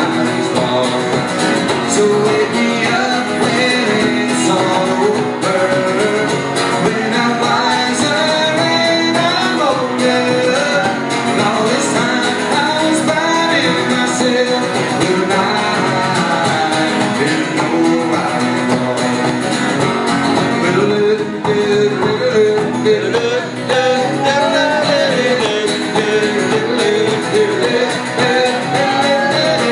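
A man singing to his own strummed acoustic guitar, a live solo cover song.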